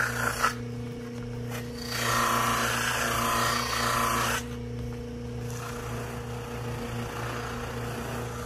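Electric bench motor with a cloth buffing wheel running with a steady hum while the edges of a Kydex holster are pressed against the wheel, giving a rubbing hiss. The rubbing is loudest right at the start and from about two seconds in until about four and a half seconds, then fainter and lighter toward the end.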